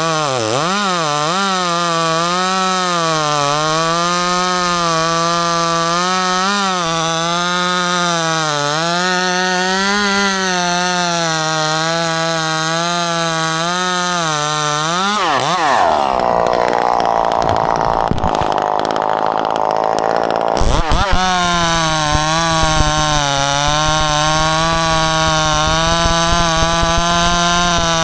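Two-stroke chainsaw running at high revs, its pitch wavering slightly. About halfway through it drops into a cut through wood for roughly five seconds, the engine note replaced by a rougher grinding under load, then it revs freely again.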